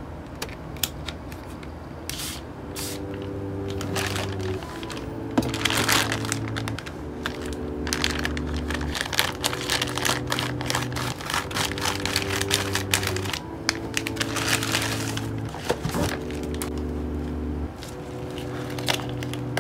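Plastic courier pouch crinkling and crackling as it is handled and opened, in many sharp short crackles. Quiet background music of soft held chords comes in about two and a half seconds in.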